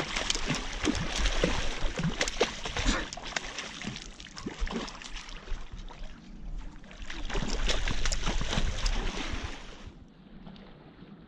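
Hooked salmon thrashing and splashing at the surface close to the bank, in two loud spells, the second dying away about ten seconds in.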